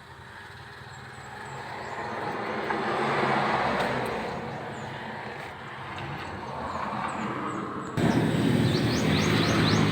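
Vehicle noise swelling over a few seconds and fading again, like a vehicle passing. About eight seconds in, a louder low engine rumble cuts in suddenly, and a few short high chirps, like birds, come near the end.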